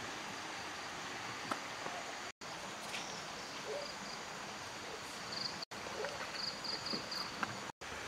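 Steady outdoor ambience by a river: an even rush of flowing water, with high chirps repeating a few times a second in the second half. The sound drops out briefly three times.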